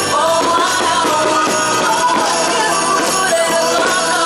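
Music with a singing voice.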